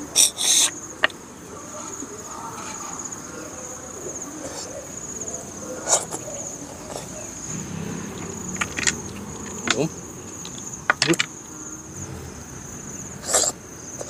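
Sharp slurps and sucks, repeated every few seconds, as cooked freshwater snails are sucked out of their shells. Under them runs a steady high insect trill.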